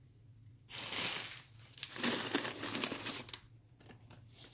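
Crumpled paper packing crinkling as a hand rummages in a shipping box: two bursts of rustling, the second longer, then lighter crinkles.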